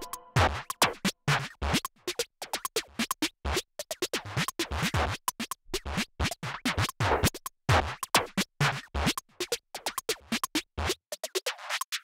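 Background electronic music with turntable-style scratching over a choppy beat, quieter than the music just before; near the end the low end is filtered away in a sweep.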